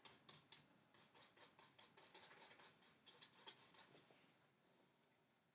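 Faint scratching of a paintbrush working oil paint onto a canvas: a quick run of short strokes that dies away after about four seconds.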